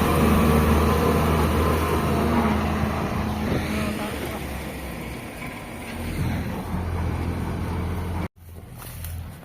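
Diesel engine of farm machinery running steadily, growing quieter after about three seconds, then breaking off abruptly near the end.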